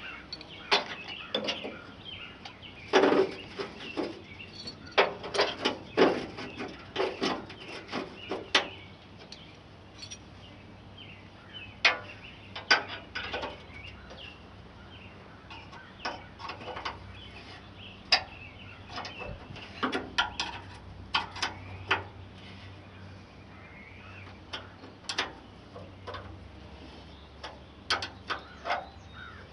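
Irregular metallic clanks and knocks of hand tools working on a corn picker's frame, some close together and some a few seconds apart.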